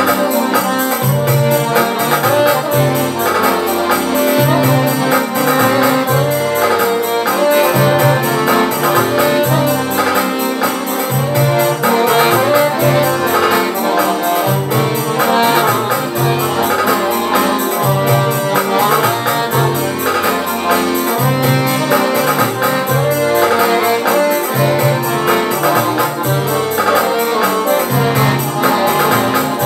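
Maga piano accordion playing a lively tune, the melody on the treble keys over a steady, evenly repeating bass beat.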